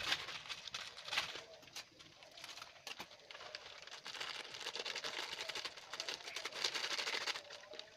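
Plastic seasoning sachets and the instant-noodle cup's packaging crinkling and rustling as they are handled and torn open, thickest in the second half.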